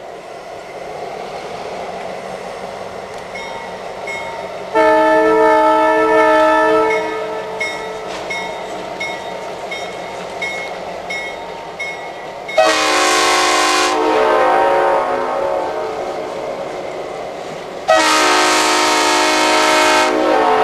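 Western Maryland EMD F-unit diesel locomotives approaching, their engines growing louder, sounding a multi-chime air horn three times: a long blast about five seconds in, a shorter one about twelve and a half seconds in, and another long one near the end.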